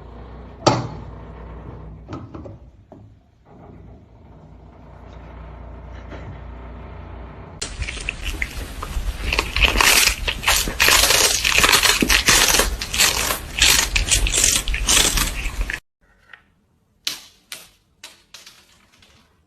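Dense crunching and crackling, louder and busier for about eight seconds in the middle, then stopping abruptly and followed by a few scattered taps.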